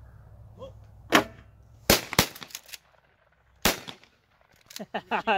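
Shotguns firing at clay targets: four sharp shots in about two and a half seconds, the second and third only a quarter of a second apart, so more than one gun is firing.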